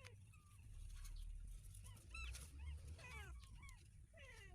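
Kittens mewing faintly: a series of short, high, thin cries, several close together from about two seconds in.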